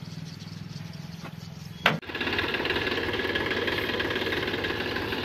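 Massey Ferguson 7250 tractor's diesel engine idling steadily. A fainter low hum comes first, then a sharp click about two seconds in, after which the engine is louder and close by.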